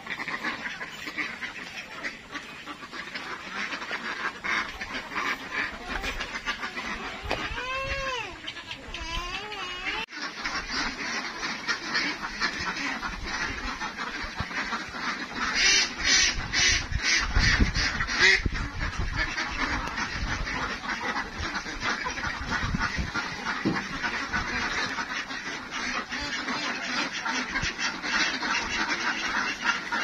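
A large flock of domestic ducks quacking in their pen, a dense, continuous chatter of many birds at once. It grows louder after about ten seconds, with the loudest bursts of quacking around sixteen to eighteen seconds in.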